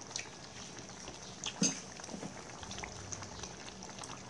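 Hotpot broth simmering in a stainless steel pot on a portable gas burner, with a few light clicks of chopsticks and utensils.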